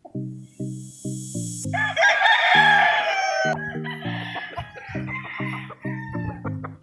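A game rooster crowing loudly about two seconds in, with further crowing and clucking from other roosters after it. Underneath is background music with a steady repeating bass line.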